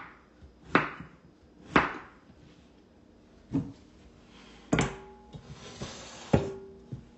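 Kitchen knife chopping through a peeled potato and knocking on a wooden cutting board, twice about a second apart. Then a stainless steel stockpot clanks twice as it is handled on the counter, each clank ringing briefly.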